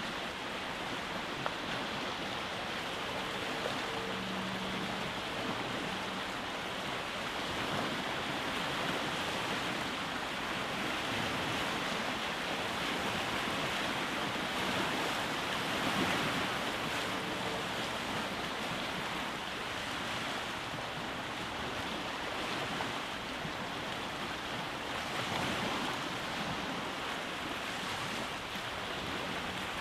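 Waves breaking and washing on a rocky shore: a continuous rush of surf that swells and ebbs, loudest about halfway through and again a few seconds before the end.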